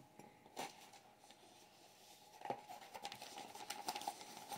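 Faint handling of an opened cardboard box and the bag packed inside it: a light tap about half a second in, then soft rustling and crinkling from about halfway through as hands work the packaging.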